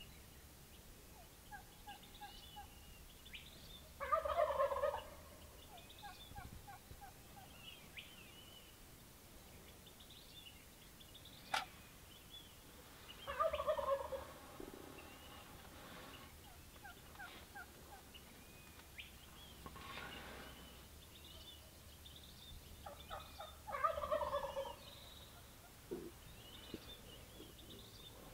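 Gould's wild turkey tom gobbling three times, about ten seconds apart, with faint high chirping between the gobbles.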